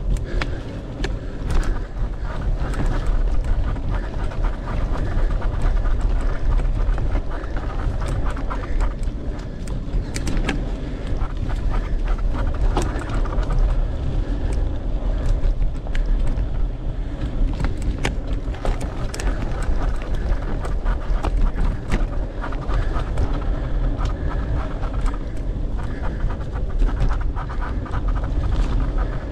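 Mountain bike ridden along a dirt trail, heard from a rider-mounted camera: wind rumbling on the microphone, tyres rolling, and frequent sharp rattles and clicks from the bike over bumps. Under it all the rider is breathing hard.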